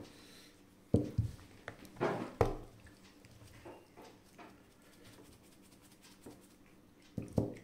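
Handling sounds at a meal table: several sharp knocks and clinks on a stainless steel plate and tabletop, a few in the first couple of seconds and more near the end. In between come faint light taps while a shaker is shaken over rice on the plate.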